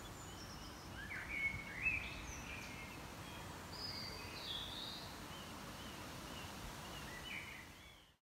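Garden birds chirping and calling in short bursts over a steady low background noise, with the loudest calls about a second and a half in; the sound fades out near the end.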